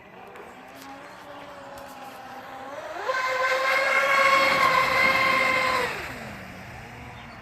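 Electric motor of a 5S-powered RC speedboat whining. It throttles up sharply about three seconds in, holds a loud, steady high whine for about three seconds, then falls back to a quieter, wavering tone near the end.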